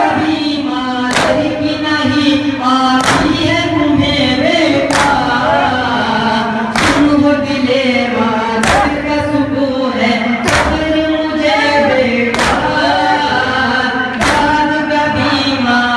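Noha sung in unison by a group of men, with matam: the mourners strike their chests together in a sharp clap about every two seconds, keeping time with the chant.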